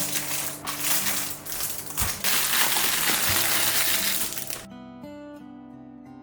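Fast typing on a mechanical keyboard, a dense clatter of key clicks that grows busier and then cuts off suddenly about four and a half seconds in, over background music that goes on as plucked guitar.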